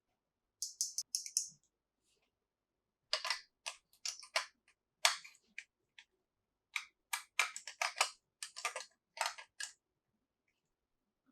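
Small plastic toy pieces being handled, with irregular clicks and clacks. A short run of light, crackly ticks comes about a second in, and a denser series of clacks follows from about three seconds in until near the end.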